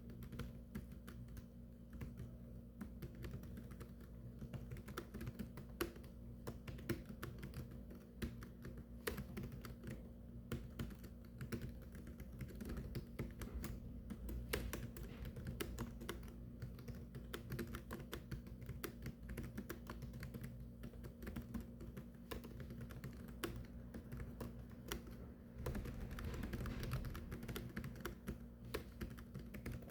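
Continuous, fast typing on a computer keyboard, an uneven stream of key clicks with no pauses, over a steady low hum.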